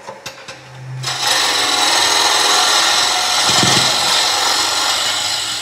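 Wood-turning tool cutting a spinning wood blank on a lathe: a steady hissing cut starts about a second in and stops abruptly at the end. It is a light truing cut, taking off a flat spot that made the tool bounce.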